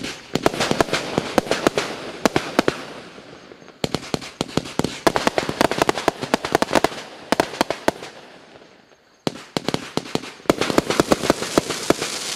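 Klasek C212MF/C 212-shot firework cake firing rapid volleys of sharp pops and bursts. There are three volleys: one just after the start, one about four seconds in and one about nine seconds in, with a short lull before the last.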